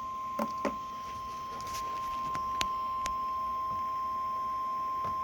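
Steady single-pitch alert tone from a weather radio receiver, the NOAA Weather Radio warning alarm tone at about 1050 Hz that announces a warning broadcast. A few faint clicks of static sound over it.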